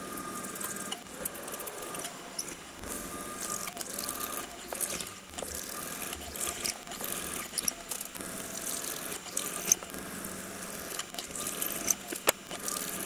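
Twist drill cutting into an aluminium plate on a milling machine: a steady spindle hum with irregular crackling and ticking as chips break off and scatter, a few sharper ticks near the end.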